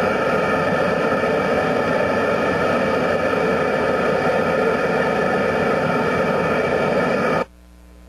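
Steady roar of a gas-fired ring burner heating a steam locomotive's driving-wheel tire so it can be removed. The sound cuts out abruptly for about half a second near the end.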